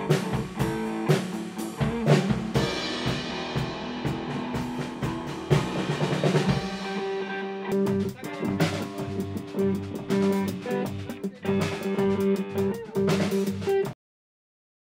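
Hard rock band playing the instrumental intro of a song: electric guitar over drum kit with cymbals. It cuts off suddenly into dead silence just before the end.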